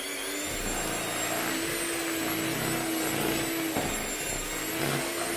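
Handheld electric mixer running steadily at one speed, its twin beaters whisking cake batter in a plastic bowl: a steady motor hum and whine.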